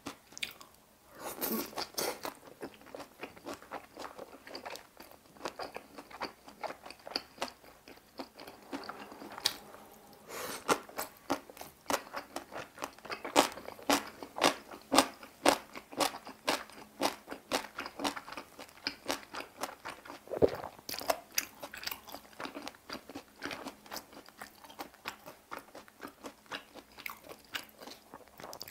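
Close-miked chewing of bossam, Korean boiled pork slices: a steady run of wet crunching and smacking clicks at an irregular pace.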